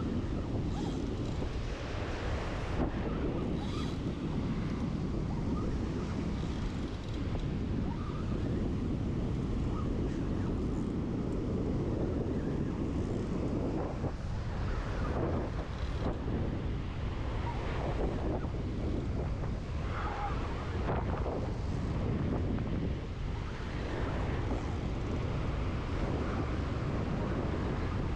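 Strong wind buffeting the microphone, a steady low rumble that covers everything, with breaking surf behind it.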